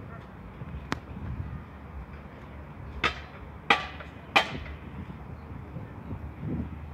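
Three sharp knocks evenly spaced under a second apart, after a single faint click, over a steady low outdoor rumble.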